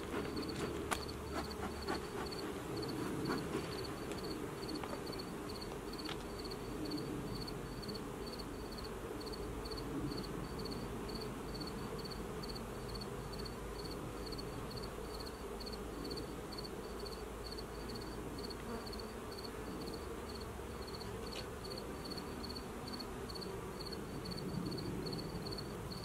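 Honey bees buzzing around an opened hive during an inspection: a steady low hum, with a faint high-pitched pulse repeating evenly over it.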